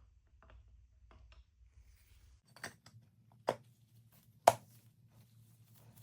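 Metal lathe parts being handled and fitted together: light clicks, then three sharp knocks about a second apart, the last the loudest.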